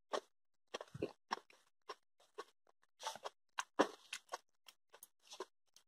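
Someone chewing a mouthful of glazed beets close to the microphone: faint, irregular crunches and mouth clicks.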